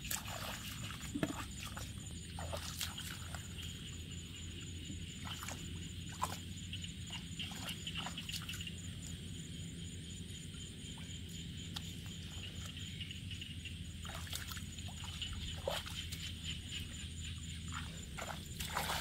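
Bare feet and hands splashing and squelching in shallow muddy water, with scattered small sloshes and sucks of mud over a steady high background buzz.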